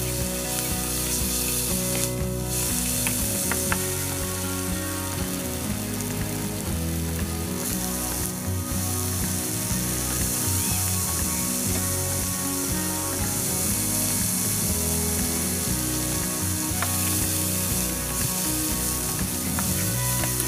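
Sliced onion and tomato sizzling steadily as they sauté in oil in a granite-coated frying pan. A spatula stirs and scrapes the pan, with a few light clicks against it.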